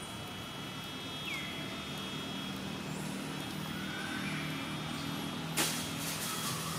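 A motor vehicle's engine hums nearby and grows louder. About five and a half seconds in comes a sudden loud hiss that trails off into a softer hiss. Steady high whining tones sound behind it, with one short falling chirp about a second in.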